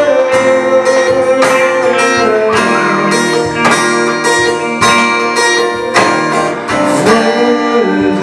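Instrumental music: acoustic guitar strummed in a steady rhythm, with sustained chord tones ringing between the strokes.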